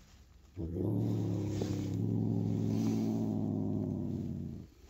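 A Maine Coon cat giving one long, low, steady growl. It starts about half a second in and stops just before the end. It is the sign of an agitated cat, upset at the other cat sharing the room.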